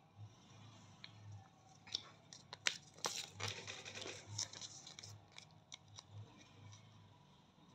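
A ready-to-use wax strip being handled and peeled apart from its twin: crackly tearing and crinkling with sharp little clicks, busiest a few seconds in.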